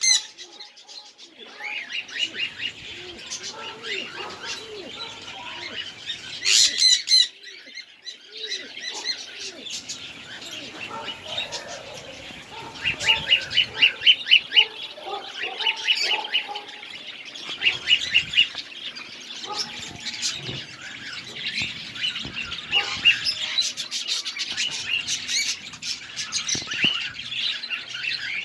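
A flock of kept birds chirping and calling over one another, with quick runs of repeated chirps standing out now and then.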